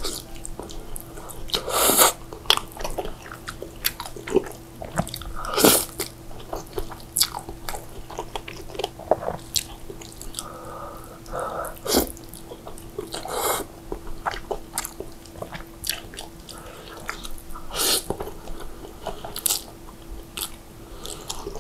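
Close-miked eating of saucy instant noodles: wet chewing and mouth clicks throughout, with several louder mouthfuls and noodle slurps a few seconds apart.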